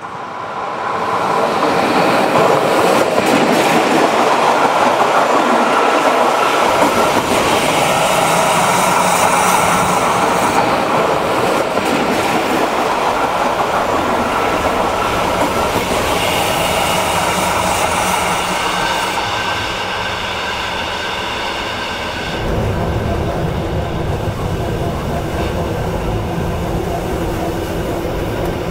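Metre-gauge Rhaetian Railway train with a Ge 4/4 I electric locomotive and historic coaches running past: wheels clattering on the rails with some squealing, growing louder over the first two seconds.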